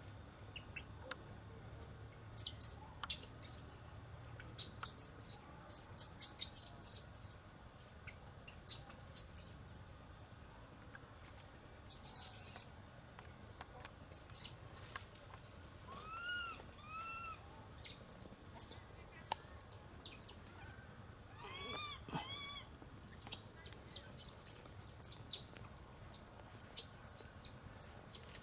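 Infant macaque's high squeaks and chirps, with short arching squeals, mostly in pairs, about halfway through and again near the end.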